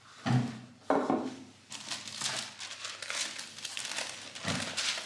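Two short bumps from a rigid cardboard box lid being handled, then tissue paper crinkling and rustling as it is unfolded.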